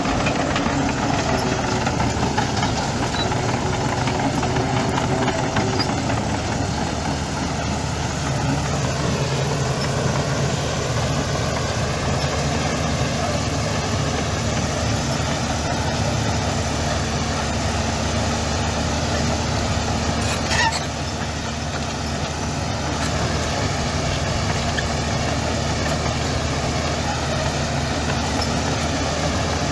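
Heavy diesel engine of earthmoving machinery running steadily, with a brief sharp click about twenty seconds in.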